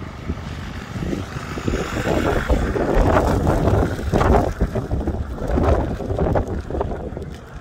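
Wind buffeting the phone's microphone in uneven gusts, a low rumble that swells and eases several times.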